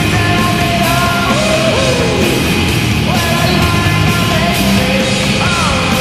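Loud rock music with vocals, played as the Atlanta Thrashers' goal celebration song.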